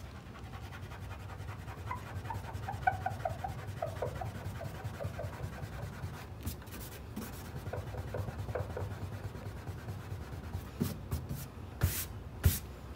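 Fingers rubbing across the turquoise painted body of a 1959 Ford Skyliner, with runs of short squeaks from skin on paint a couple of seconds in and again past the middle. A few sharp taps near the end.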